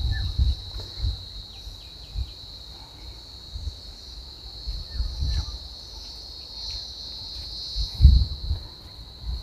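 Steady high-pitched buzzing of an insect chorus, with irregular low rumbles now and then, the strongest about eight seconds in.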